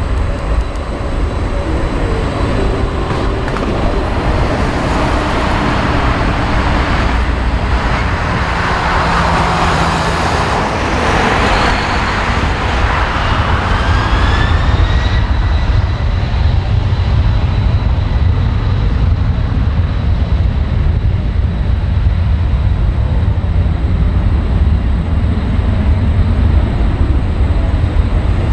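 Boeing 767-300 freighter's twin turbofan engines running loud with a deep rumble. About halfway through, a whine rises in pitch as the engines spool up to take-off thrust, then holds steady over a stronger low rumble as the jet starts its take-off roll.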